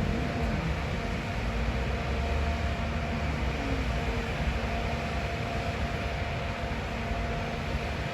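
Steady rushing background noise with a faint constant hum, like ventilation or air-handling running.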